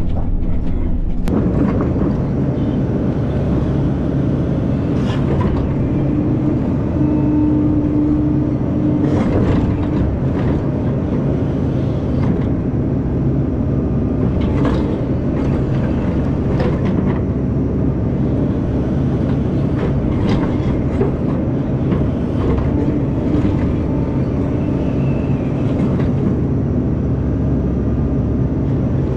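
Crawler bulldozer's diesel engine running steadily under load while its rear ripper tears through hard ground, with irregular clanks and knocks from the tracks and ripper.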